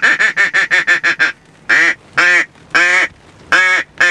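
Mallard duck call blown close by: a fast run of short quacks, about eight a second, then four longer, drawn-out quacks about half a second apart.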